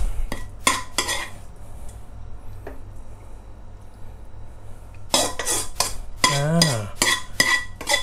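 A metal ladle scraping and clinking against a wok as the stir-fried shrimp is scooped out for plating. It comes in two bouts: about a second of strokes at the start, then a quieter pause, then more scraping from about five seconds in.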